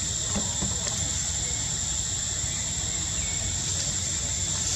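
Steady high-pitched insect drone that holds one pitch throughout, over a constant low rumble.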